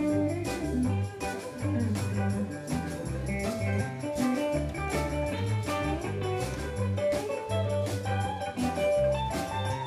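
Live band playing reggae: a bass line under electric guitars and drum kit, with short regular strokes over the top.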